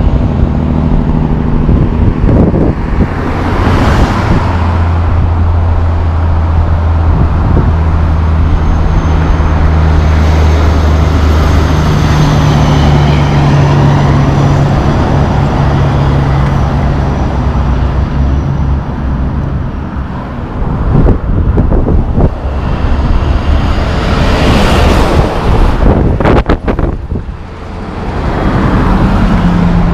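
Class 8 semi-truck's diesel engine running with a steady low drone as the rig passes, pulling a set of curtainside B-train trailers; the drone ends about two-thirds of the way in. Road traffic and tyre noise run under it, and another vehicle passes close near the end.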